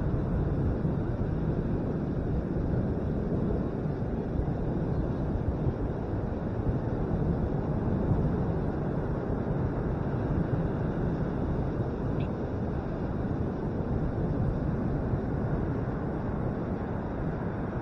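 Wind buffeting the microphone over the steady low rush of surf breaking on the beach.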